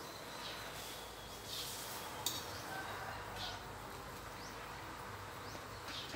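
Faint short, rising high chirps of a small bird, repeated about once a second over a steady background hiss, with a sharp click about two seconds in and a louder click at the end.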